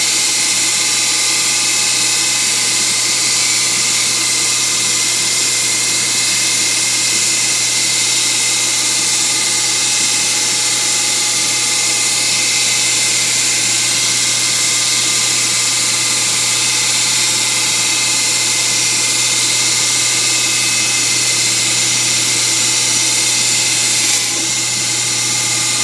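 CNC-converted Grizzly G0602 benchtop lathe running steadily, a loud machine whine over a high hiss. Near the end there is a brief click, after which it runs slightly quieter.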